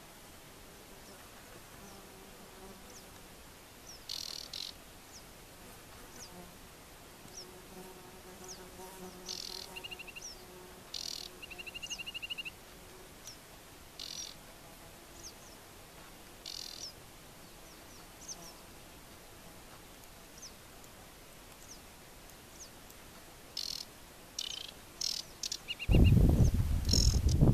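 Aquatic warbler singing: short high notes and a few quick trills, in brief phrases with pauses between them. Near the end a much louder low rumbling noise comes in over the song.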